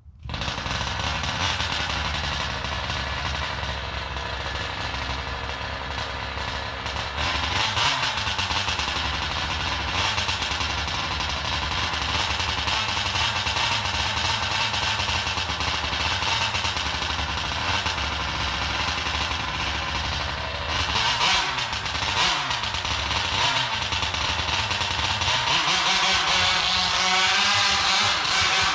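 50cc GT Taylor two-stroke petrol engine of a Kraken Vekta 5 large-scale RC buggy running and revving, starting suddenly, with the revs rising and falling about 8 seconds in and again near the end, where it gets louder.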